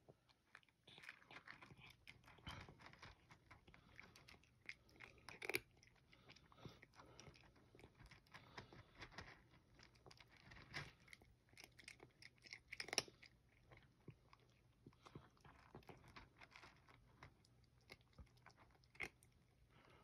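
A cat crunching dry kibble: faint, quick, irregular crunches, with a couple of louder crunches about five and thirteen seconds in.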